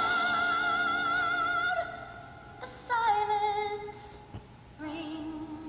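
Background song: a woman's voice holds a long note with vibrato, then sings a few shorter, quieter notes over soft accompaniment.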